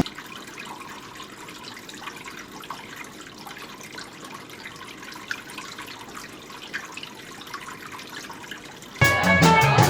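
The band stops, leaving faint room noise with scattered small clicks and clinks. The band, guitar and drums, comes back in loudly near the end.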